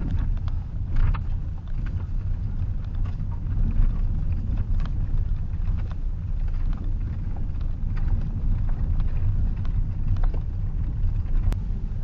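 Road noise and a low engine rumble inside a moving van, with small rattles and knocks from the cabin as it drives over an uneven road.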